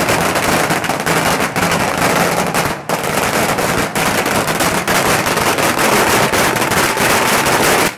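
Firecrackers going off in a dense, rapid string of sharp cracks, loud and continuous, with a brief lull a little under three seconds in.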